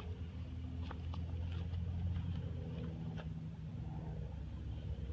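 A steady low hum with a few faint, light clicks and rustles scattered over the first few seconds.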